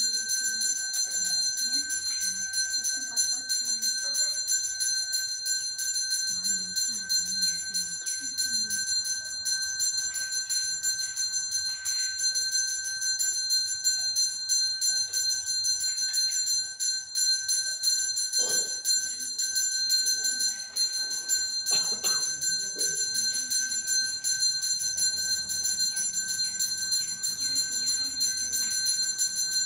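Temple bells ringing without pause, a steady high metallic ring kept up by rapid strokes, as during the pouring of an abhishekam.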